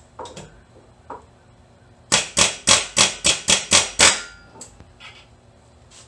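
A quick run of about eight sharp knocks, about four a second, with a few lighter clicks and taps before and after: parts being struck while working up under the lifted car.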